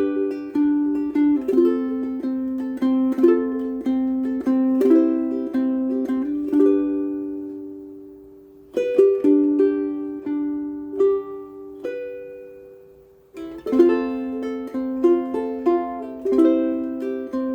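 Martin IZ edition tenor ukulele with aNueNue Green Planet strings, plucked in a loose, improvised melody. Twice the notes are left to ring and die away before a new phrase begins, about nine and fourteen seconds in.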